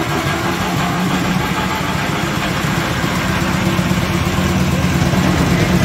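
Jumbo carpet spinner (centrifugal wringer) running with a thick 10-metre carpet loaded in its drum: a steady low mechanical hum of the motor and spinning drum, gradually getting a little louder.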